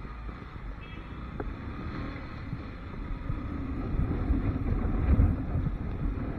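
Motorcycle riding through city traffic: low engine and road rumble under wind buffeting on the microphone, growing louder about two-thirds of the way through.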